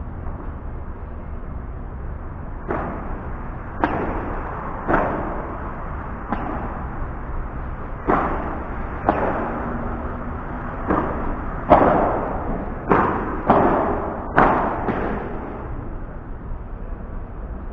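Padel rally: the ball struck back and forth with padel rackets, about a dozen sharp pops roughly a second apart, each with a short echo. The hits come closest together in the second half, and the loudest falls about twelve seconds in.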